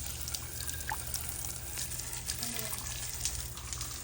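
Water running steadily from a tap or shower spray, with a few short soft calls from an African grey parrot, including one brief rising whistle about a second in.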